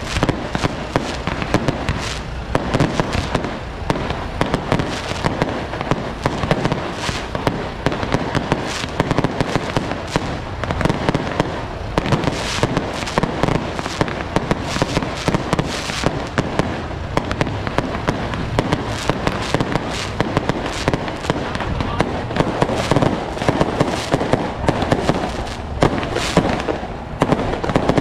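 Strings of firecrackers going off nonstop, a dense, continuous rattle of loud bangs.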